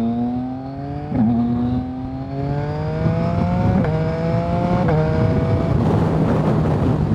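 Motorcycle engine accelerating hard through the gears, its pitch climbing in each gear and dropping back at each of about four upshifts. Wind rushing over the microphone takes over near the end as the bike reaches speed.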